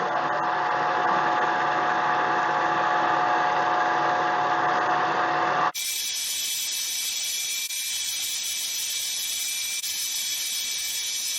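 Mini lathe running steadily while turning polycarbonate, with steady motor tones. About six seconds in, the sound changes abruptly to a higher-pitched motor whine.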